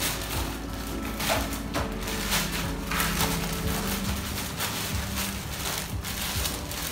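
Plastic bag rustling and crinkling as a copier duplex unit is handled inside its wrapping, irregular throughout, with soft background music underneath.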